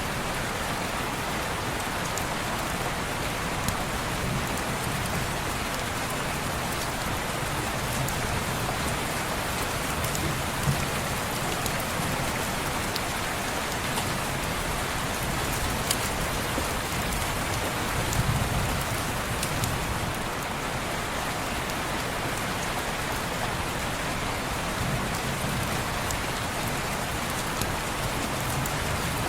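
Steady rain pattering on window glass, a dense even hiss with scattered sharp ticks of drops. A soft low rumble swells now and then, most noticeably about two-thirds of the way through.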